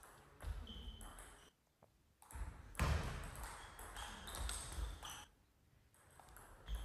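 Table tennis rally: the celluloid-type plastic ball clicking off bats and the table in sharp, separate hits at uneven intervals, with a short lull about two seconds in.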